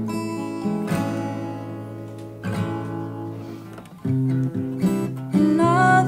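Music: strummed acoustic guitar chords left to ring, with a louder, fuller passage coming in about four seconds in.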